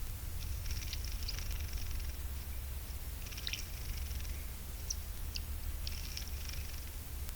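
High-pitched chattering calls of a small wild animal, in three bursts with a few short squeaks between them, over a steady low hum.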